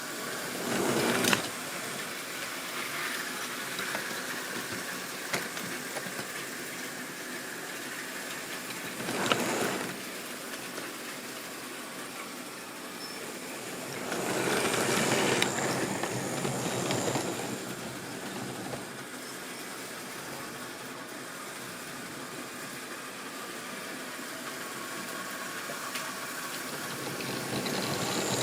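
Model railway train running on its track: a steady whirr of motor and wheels that swells louder several times as the train comes closer, with a few sharp clicks over the rail joints.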